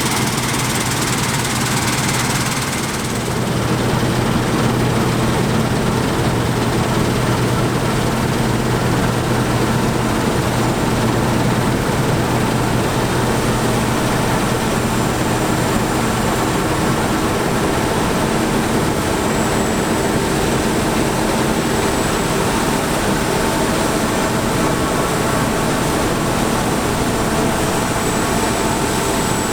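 Heavy diesel harvest machinery running steadily under load, a constant engine drone with a mechanical whine; the sound shifts slightly about three seconds in.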